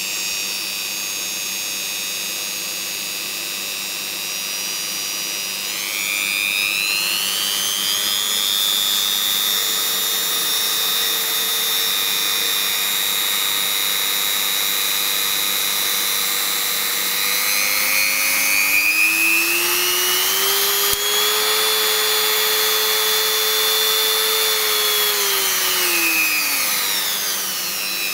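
Ryobi EHT150V rotary tool (engraver) with its flexible shaft attached, running with no load: a steady electric motor whine. It rises in pitch about six seconds in as it speeds up, dips and climbs back up about two-thirds of the way through, and falls near the end as it slows.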